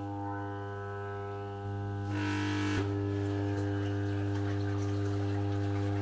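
Electric water pump running on its first test start, with a steady hum and a short noisy rush about two seconds in. It fails to deliver water, which the owner puts down to the hose having come off.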